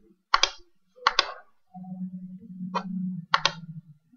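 Computer mouse clicking about six times, in sharp clicks that partly come in quick pairs. A low steady hum runs for about a second and a half in the middle.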